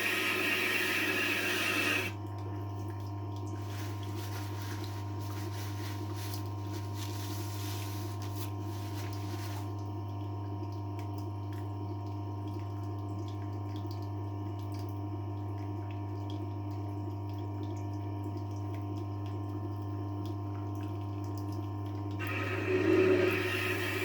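Tormek T-8 wet grinder's motor humming steadily, with the steel of a kitchen knife hissing against the water-cooled grinding stone for the first two seconds and again near the end.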